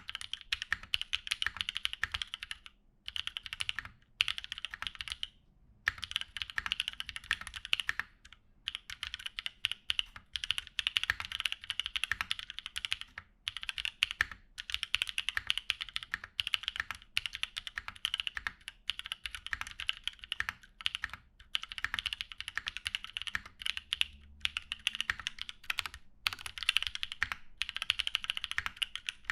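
Typing on an Equalz One custom mechanical keyboard with a polycarbonate plate, lubed Drop Holy Panda tactile switches and GMK keycaps. It gives a fast, continuous run of keystroke clacks, broken by a few short pauses in the first nine seconds or so.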